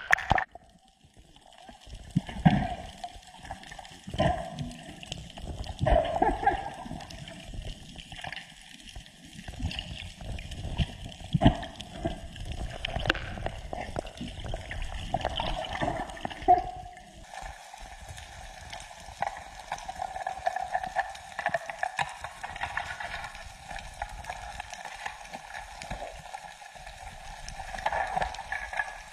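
Water gurgling and sloshing against a camera housing underwater, with irregular knocks as the diver moves. About halfway through, a steadier hum with several constant tones joins in.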